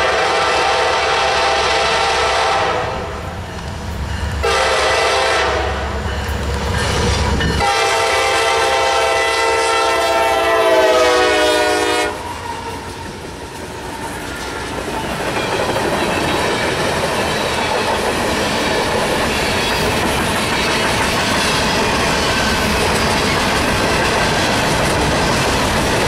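Horn of a CSX SD40-3 locomotive sounding long blasts as the train approaches, with a short break about three seconds in; the last blast dips slightly in pitch and cuts off about twelve seconds in as the lead units pass. Then the trailing locomotives and a loaded phosphate train of hopper cars roll past at about 45 mph with steady wheel clickety-clack and rumble.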